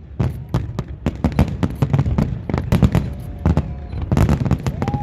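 Fireworks display: aerial shells bursting in a rapid, irregular run of bangs, several a second.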